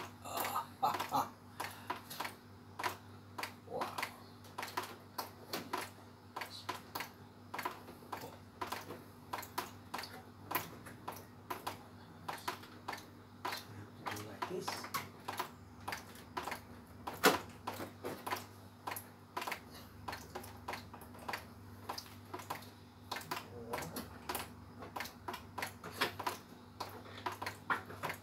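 Irregular plastic clicks and knocks, a few a second, from the front cover panel of a wall-mounted split air conditioner being handled, pried with a screwdriver and lifted open.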